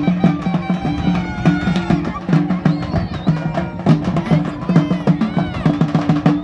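Live traditional drumming: drums beaten in a fast, steady rhythm, with a pitched melody line weaving over them.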